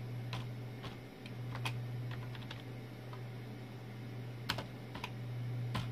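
Computer keyboard being typed on: a dozen or so irregular key clicks, spaced out as if picked one at a time, over a steady low hum.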